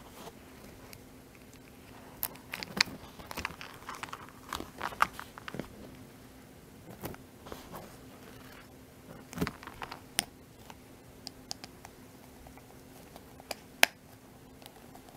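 Handling of a small leather wallet on a metal chain strap: the chain links clink and the leather flap and metal hardware give scattered light clicks and taps.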